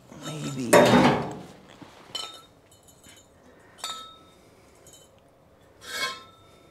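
Pieces of polished metal exhaust tubing clinking as they are handled, three short clinks about two seconds apart, each ringing briefly.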